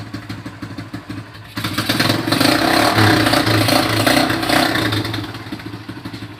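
Motorcycle engine of a sidecar tricycle running. It gets louder about a second and a half in, then dies down again toward the end.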